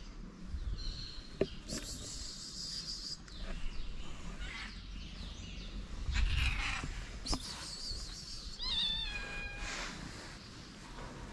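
A cat meowing: one high-pitched meow, falling in pitch, about nine seconds in, among soft rustling and a few light knocks.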